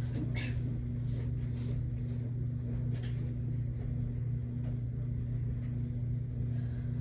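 A steady low hum at one unchanging pitch, with a few faint brief noises over it near the start and about three seconds in.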